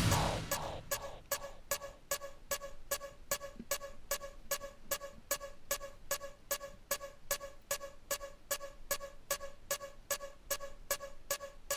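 Electronic music track: after a loud hit at the start, a steady pulse of short, pitched clicks, about three to four a second, builds toward a full dance beat.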